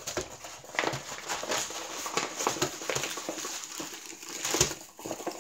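Plastic wrapping and the paper backing of a rolled diamond painting canvas crinkling and rustling as it is unwrapped and unrolled by hand, with a sharper crackle about four and a half seconds in.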